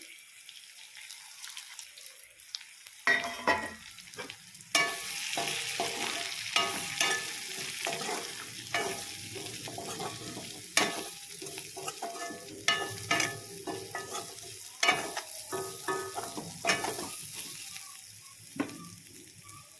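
Jute leaves frying in hot oil with pork, sizzling, while a spatula stirs them, scraping and clattering against the pan. The sizzling and stirring start about three seconds in.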